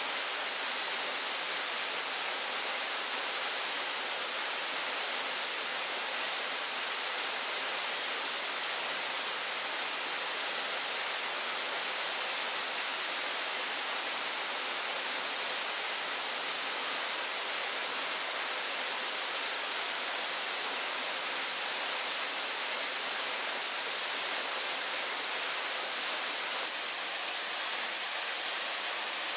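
Steady, even hiss of rushing water, unbroken and without changes.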